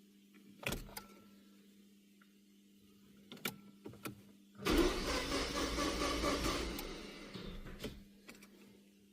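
A few sharp clicks, then the Peugeot's starter motor cranking the engine for about three seconds, dying away near the end.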